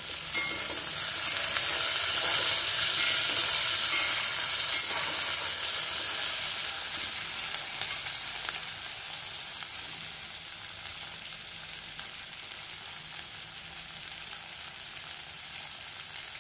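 Sliced green capsicum sizzling in hot oil in a kadai, stirred with a metal slotted spatula. The sizzle swells about half a second in and stays loudest for several seconds, then settles to a steady, quieter sizzle.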